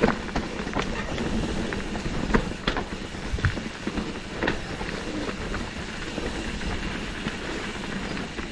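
Mountain bike riding down a rocky downhill trail: a steady rattling rumble from the tyres and bike, broken by irregular sharp knocks and clacks as it hits rocks.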